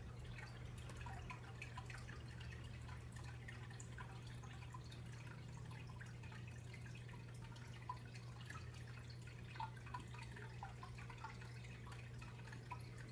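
Faint steady low hum with scattered light ticks and clicks, a few sharper ones in the second half.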